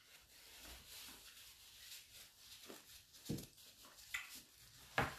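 Close-up mouth sounds of a person biting and chewing crunchy raw green carabao mango, with a few sharper crunches in the second half.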